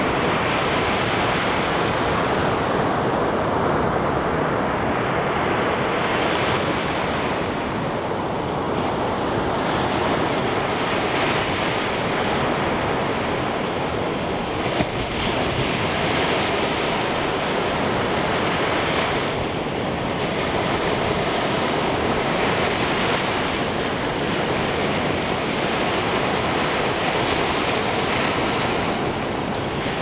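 Sea surf breaking and washing up a sandy beach: a steady rush of waves that swells and eases with each wave, with one brief knock about halfway through.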